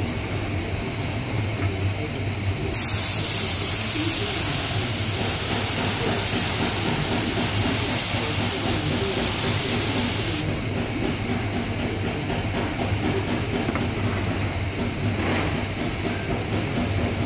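Compressed air hissing hard for about eight seconds, starting a few seconds in and stopping abruptly, over a steady low hum.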